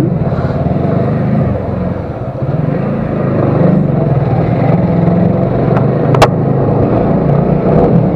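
Motorcycle engine running as it is ridden, dipping slightly and picking up again two to three seconds in, with a single sharp click about six seconds in.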